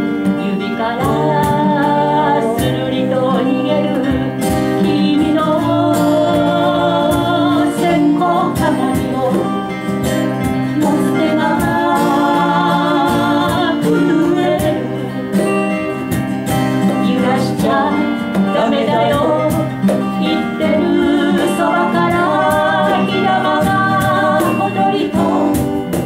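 Two acoustic guitars playing a folk song, with a singing voice carrying the melody over them in phrases.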